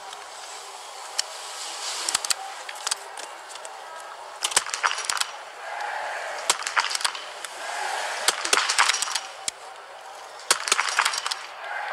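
Small-bore .22 biathlon rifles firing on the shooting range: sharp cracks in irregular clusters as several athletes shoot standing, over crowd noise that swells and falls.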